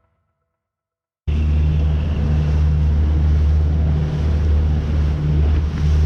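A boat motor running steadily underway with a low hum, mixed with wind and water noise; it cuts in abruptly about a second in after a moment of silence.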